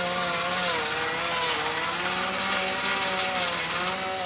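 Two-stroke chainsaw running at high revs, cutting into the tree trunk, its engine pitch wavering up and down as the chain meets load.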